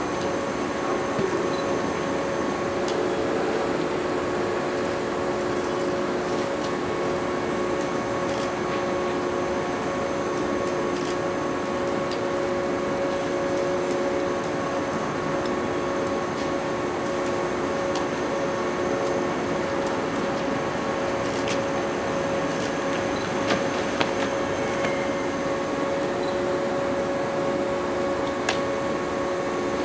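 Steady electric hum with a few constant whining tones from the auxiliary equipment of a stopped KuMoYa 145 and 113-series electric train idling at the platform. A few sharp ticks come about two-thirds of the way through and again near the end.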